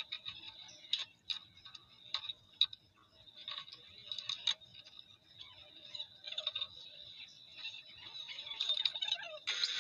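Irregular light clicks and taps over a faint steady high whine. Just before the end a machine starts up with a steady, much louder running noise.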